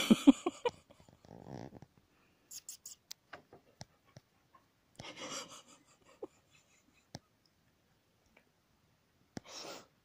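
A brief burst of a person's voice right at the start, then scattered soft breaths, rustles and faint clicks close to the microphone.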